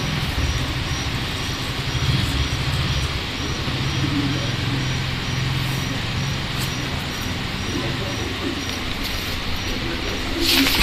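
Steady background hum and hiss. Near the end comes a short scrape and knock as a hand picks the conch shell up off the floor.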